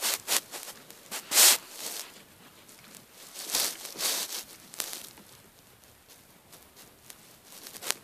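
Rustling and scuffing handling noise in a few short bursts, the loudest about a second and a half in and again around four seconds, with quiet gaps between.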